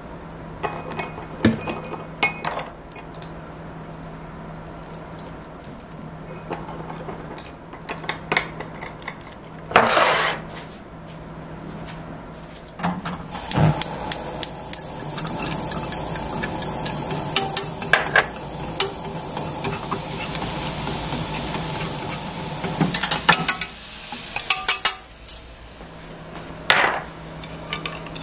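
A metal spoon clinking against a small ceramic bowl while stirring a sauce, then, about 13 seconds in, food sliding into hot oil in a non-stick frying pan and sizzling steadily for about ten seconds before the sizzle stops. Wooden chopsticks tap and scrape the pan near the end.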